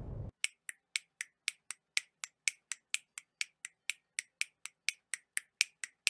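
A low rumbling noise cuts off a moment in. It is followed by a steady run of sharp, evenly spaced clicks, about four a second, like a fast ticking.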